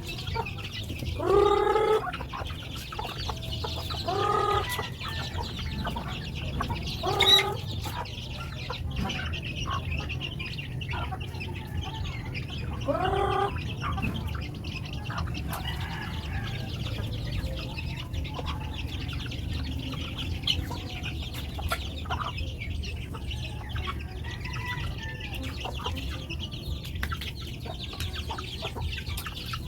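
Native chickens clucking, with four louder drawn-out calls spread through the first half, over a steady low rumble.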